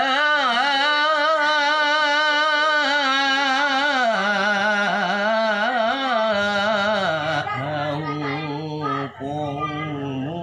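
A man reciting the Qur'an aloud in Arabic in a melodic chanting style, with long ornamented notes and a wavering pitch. The melody steps lower about four seconds in and again about seven seconds in, and there is a short breath pause about nine seconds in.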